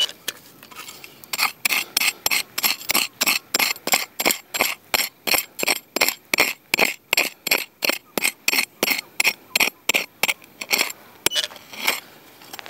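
Metal detector sounding a rapid series of short, sharp beeps, about three a second, which stop about eleven seconds in.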